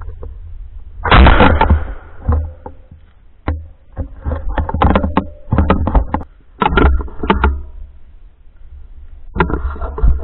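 A string of sharp clicks and knocks from a carbine being handled, with one loud burst of noise about a second in, over a low rumble on the microphone.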